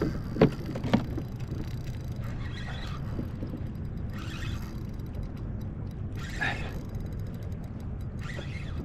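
Spinning reel working under load as a hooked fish pulls against it: a few sharp mechanical clicks in the first second, then several short bursts of reel noise, over steady wind and water noise.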